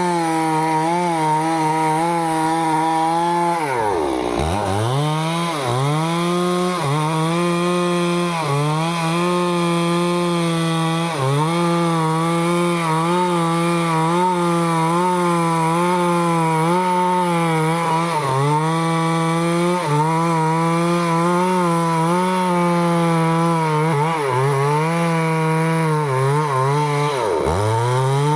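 Stihl two-stroke chainsaw running at high revs while cutting teak wood. Its pitch wavers as the chain bites, and it sags steeply twice, about four seconds in and again near the end, before picking back up.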